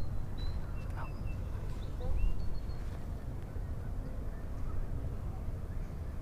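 Several short, high bird chirps in the first few seconds over a steady low rumble.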